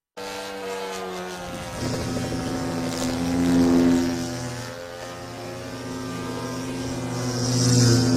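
Small model-aircraft engine running steadily, swelling louder twice as it is throttled up.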